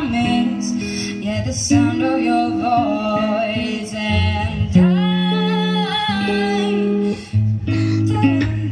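Music: a slow song with acoustic guitar and bass accompaniment under a singing voice that holds and bends notes without clear words.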